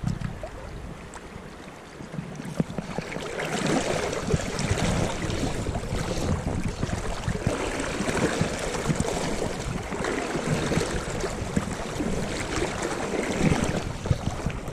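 River water flowing around the wading angler, mixed with wind buffeting the camera's built-in microphone. The noise swells about two and a half seconds in and stays rough and uneven.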